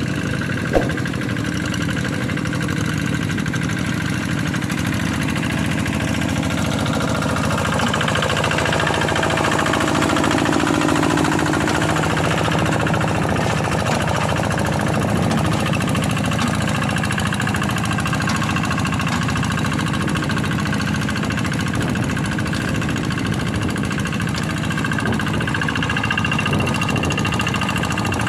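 Kubota single-cylinder diesel engine of a Quick G1000 hand tractor running steadily while plowing a rice paddy, a little louder in the middle stretch. A single sharp click comes about a second in.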